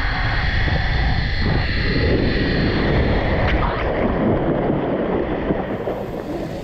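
Wind rushing over the microphone as a hammock rides a zip line down over water, with a steady high whine from the trolley running on the cable. From about three and a half seconds in, water splashes and churns as the hammock skims into the water.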